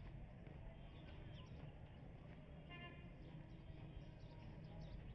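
Faint outdoor ambience: a low steady rumble with scattered short bird chirps.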